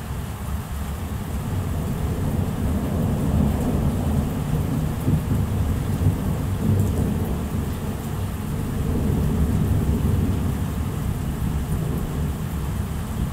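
Long rolling thunder rumble over steady rain. It builds about a second in, is loudest through the middle, and eases off toward the end, with no sharp crack.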